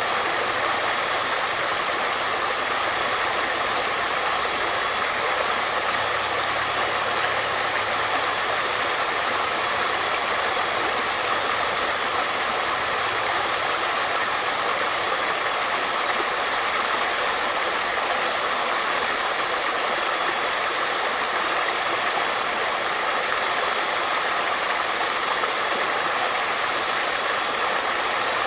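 Flowing water: a steady, even rush of running water, unbroken throughout.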